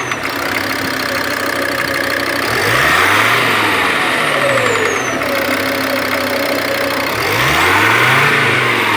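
Volkswagen Crafter van engine revved up and let back down twice, the note rising and falling each time. The revving is meant to bring out a light knock on lift-off, which the owner suspects comes from the hydraulic lifters or the timing chain.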